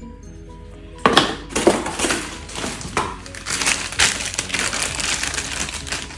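Packaging crinkling and rustling in irregular crackly bursts as parts are unwrapped, starting about a second in; before that, only faint background music.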